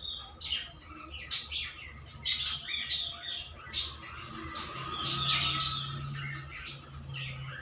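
Small birds chirping, many short high calls coming irregularly one after another, with a faint low hum in the background from about halfway through.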